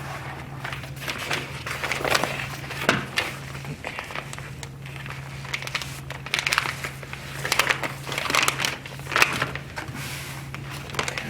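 Sheet of contact paper crinkling and rustling in irregular bursts as it is handled and smoothed onto cardboard, over a steady low hum.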